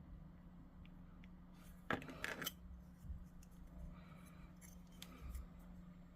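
Hobby sprue cutters snipping plastic miniature parts: a quick cluster of sharp snips about two seconds in, then a few lighter clicks near the end.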